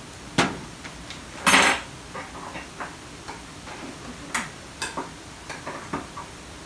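Kitchen handling noises beside a cooking pot: a string of sharp clicks and light knocks from utensils and containers. The loudest is a slightly longer clatter about a second and a half in.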